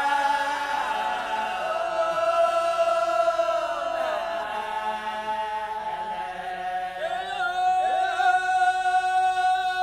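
Wodaabe men singing the geerewol chant a cappella in a group: several voices hold long notes that slide downward as they enter. The singing thins out briefly and comes in again about seven seconds in.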